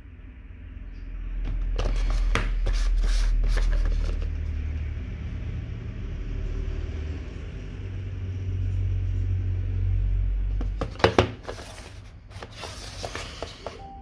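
Small cardboard product box handled in the hand: rustles and light taps as it is turned over, two sharp knocks about eleven seconds in, and more rustling near the end as it is moved, over a steady low rumble.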